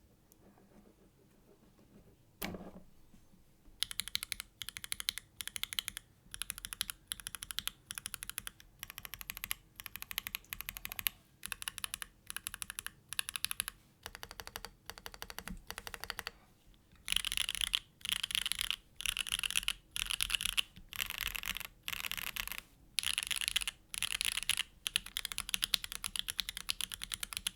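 Mechanical keyboard being typed on: a gasket-mounted Neo Ergo with an aluminium plate, hand-lubed Gateron Oil King linear switches and GMK Serika keycaps. After a quiet start broken by a single low thud, rapid keystrokes come in bursts of about a second each with short pauses between, louder in the second half.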